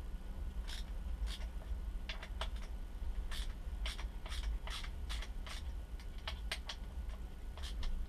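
Ratcheting hex-bit driver clicking in quick irregular runs as it is worked back and forth on a bolt in the fork crown, over a steady low hum.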